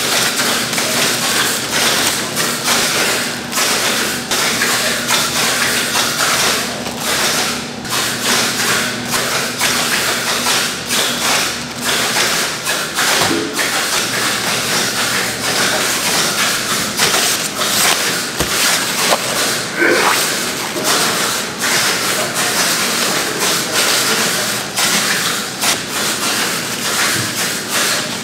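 Kimchi factory production floor: a steady machinery noise with a constant clatter of irregular knocks, taps and thumps. A low hum runs under it through the first half.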